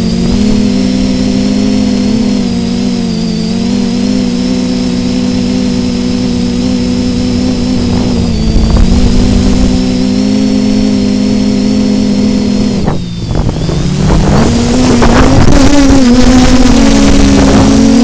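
DJI F450 quadcopter's motors and propellers humming steadily, heard through its onboard camera with wind buffeting the microphone. About thirteen seconds in the hum drops in pitch and level, then wavers and climbs back up.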